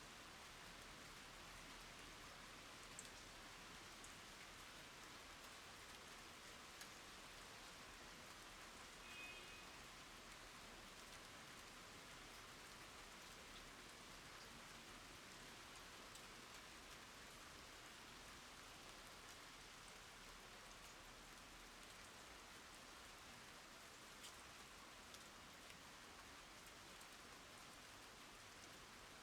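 Light rain falling steadily, a faint even hiss with now and then a single drop ticking louder. A brief faint high chirp about nine seconds in.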